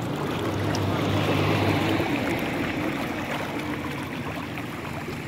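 Muddy floodwater flowing: a steady rushing noise.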